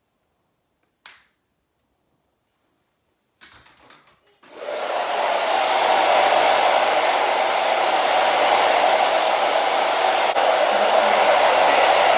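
Handheld hair dryer switched on about four seconds in, then blowing steadily, drying the wig glue on the lace front. Before it starts there is a short click about a second in and a brief rustle.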